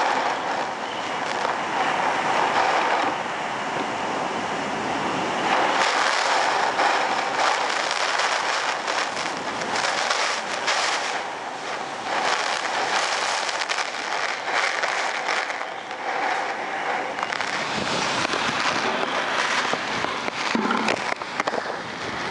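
Category 5 hurricane wind with driving rain, rising and falling in gusts, with wind buffeting and crackling on the microphone.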